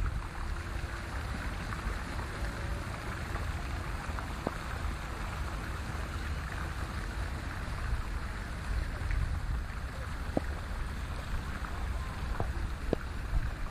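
Steady outdoor noise: a hiss with a fluttering low rumble and a few scattered faint ticks.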